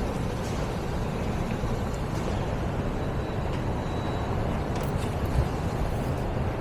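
Mercedes OM642 3.0-litre V6 diesel in a Sprinter van idling steadily. It now starts and runs after a crankshaft sensor that had been held too far from the tone wheel by a wrong spacer was corrected.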